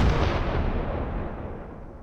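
The fading tail of a single heavy boom, an explosion-like sound effect, dying away steadily, with the low rumble lasting longest.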